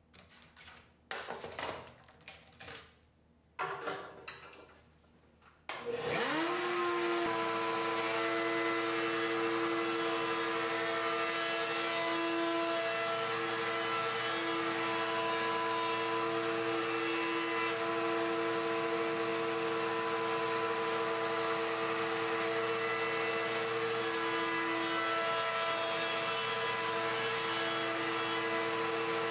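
A few knocks and handling sounds of wood on the table, then a router in a router table switches on about six seconds in, spins up with a rising whine and runs steadily while a plywood strip is fed past its bearing-guided bit, the pitch wavering slightly now and then as it cuts.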